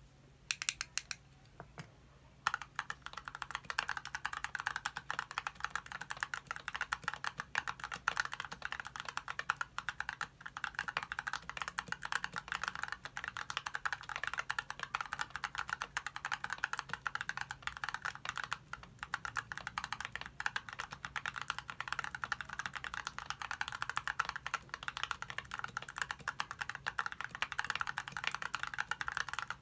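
Fast continuous typing on an ID80 v2 mechanical keyboard with lubed Gazzew Boba U4T tactile switches and PBT keycaps, a tape-modded build. A few scattered keystrokes open it, then rapid steady typing starts about two and a half seconds in.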